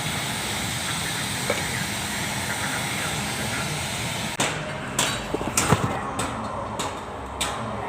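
An engine runs steadily and cuts off abruptly about halfway through. It is followed by a series of sharp knocks about every half second.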